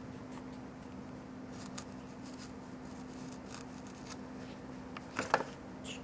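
Paintbrush bristles dabbing and scraping paint onto paper: a run of short, scratchy strokes, with a louder scrape about five seconds in. A steady low hum runs underneath.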